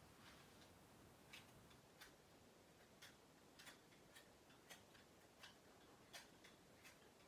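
Near silence: room tone with faint, short clicks, unevenly spaced at roughly one or two a second.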